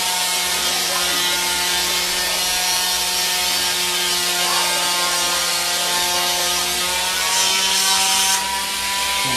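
Battery-operated craniotome running steadily at one pitch while it cuts through plywood, with a high cutting hiss. The cutting sound grows louder for about a second near the end.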